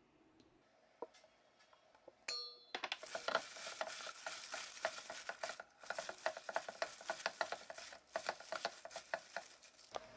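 Hands vigorously tossing and mixing soybean sprouts with seasoning in a stainless steel bowl: dense, rapid wet rustling and clicking of sprouts against the metal, starting about three seconds in after a few small clicks.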